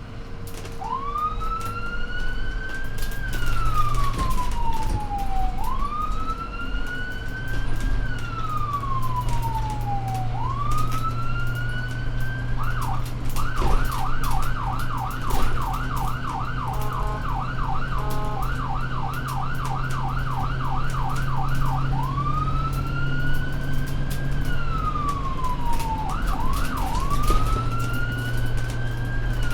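Emergency vehicle's electronic siren sounding a slow wail that rises and falls about every five seconds. In the middle it switches to a rapid yelp for about nine seconds, then goes back to the wail, over a steady low drone.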